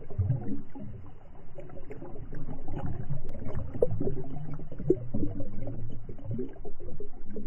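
Creek water rushing and gurgling as heard underwater through a camera's waterproof housing, deep and muffled, with scattered short knocks and bubbly pops.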